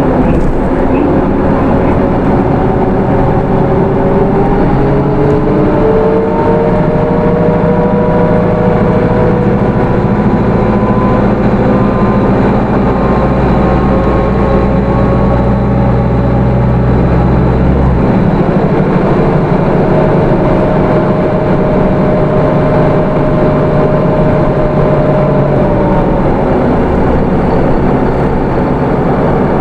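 Hino Rainbow II route bus running under way, heard from inside the cabin: its 4HK1 four-cylinder diesel and automatic transmission whine rising in pitch as it gathers speed. About two-thirds of the way through, the deep engine sound drops off, and near the end the whine falls.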